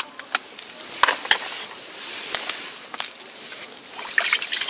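Water and slush splashing in an ice-fishing hole, with scattered sharp clicks and light knocks, as small smelt are pulled out of the hole onto the ice.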